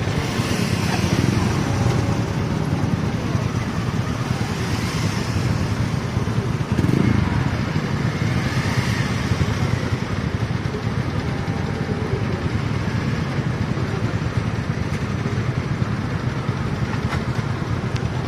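Indian Railways train running, giving a steady low rumble with hiss above it.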